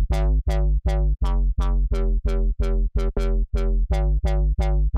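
Spire software synth bass house patch, a square-wave bass through comb and low-pass filters with shaper distortion, playing the same short low note over and over, about three times a second. Each note starts bright and quickly closes down to a dull tone.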